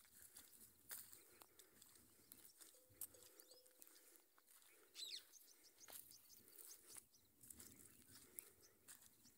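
Near silence: faint rural outdoor ambience with scattered soft clicks and one brief falling bird chirp about five seconds in.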